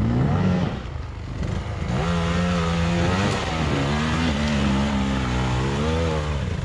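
Dirt bike engine revving in surges as it climbs a muddy rutted slope, its pitch swooping up and down at first, easing off about a second in, then held on the throttle with a wavering pitch.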